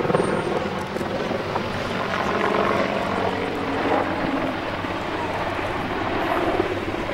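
Apache AH Mk.1 attack helicopter flying close overhead, its main rotor and twin turboshaft engines making a steady, loud sound.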